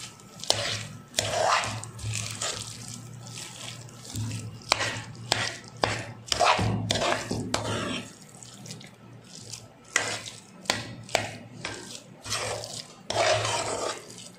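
Metal spoon mashing and stirring soft, well-cooked ven pongal (rice and moong dal porridge) in a metal pot: wet squelching and scraping, with irregular sharp clinks of the spoon against the pot.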